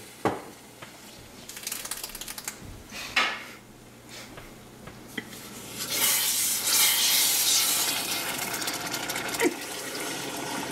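Water being poured from a cup into a stainless saucepan of sugar and cream of tartar, with a wooden spoon stirring and knocking against the pan. The pouring is loudest from about six to nine seconds in, then eases off.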